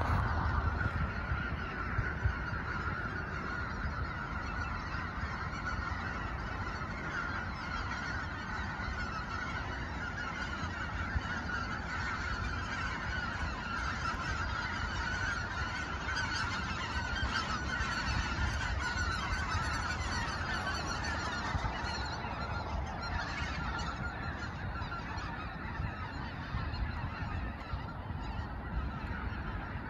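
A large flock of geese calling in flight: a dense, continuous chorus of many overlapping calls that is fullest in the middle and thins out after about twenty-two seconds.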